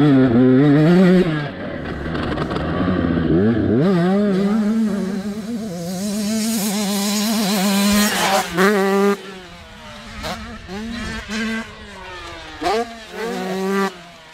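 Husqvarna TC85 85cc two-stroke motocross engine revving hard, its pitch climbing and dropping rapidly as the rider works the throttle and gears. It is loud up close for the first several seconds, then quieter after about nine seconds, broken by short sharp bursts of revving.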